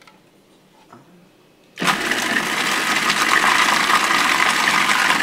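Cuisinart food processor switched on about two seconds in, its motor running steadily as the blade churns a thick peanut sauce.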